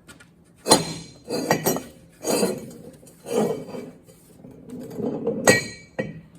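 Metal clanking and clinking on a strapped-down NV4500 transmission as a wrench works its fifth-gear nut toward 250 lb-ft. There are about five clanks, each ringing briefly, about a second apart, and a short sharp click near the end.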